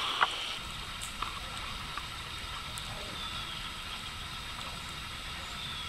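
Steady rush of a flowing river, with a few faint ticks.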